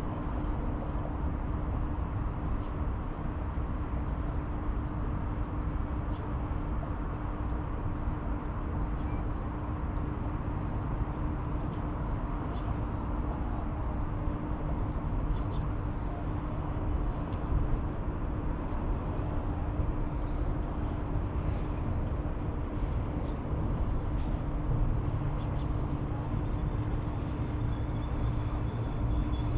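Steady outdoor ambience of distant city traffic rumbling, with a constant low hum. A deeper engine drone comes in near the end and grows louder.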